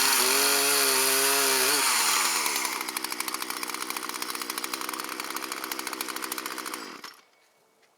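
Two-stroke chainsaw at full throttle, its pitch wavering under load, then dropping to idle about two seconds in and chugging along until the engine is shut off about seven seconds in.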